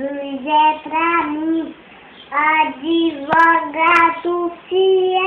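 A five-year-old boy singing unaccompanied, holding long notes in short phrases with a brief break about two seconds in.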